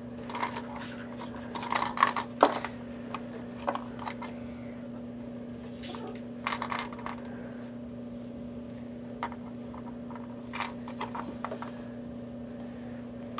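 Light plastic clicks and clatters of LEGO minifigures being handled and stood up on a toy train track, in scattered clusters, over a steady low hum.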